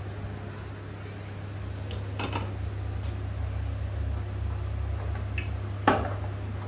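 A few short clinks and knocks of metal cookware and utensils being handled, the loudest near the end, over a steady low hum.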